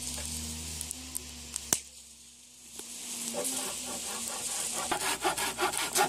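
Firewood burning in a metal barbecue brazier, crackling and hissing, with one sharp pop about two seconds in. Toward the end a fast, even scraping rhythm builds up.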